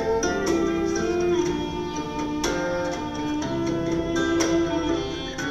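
Recorded music playing: an instrumental stretch with held and plucked-string notes and no singing.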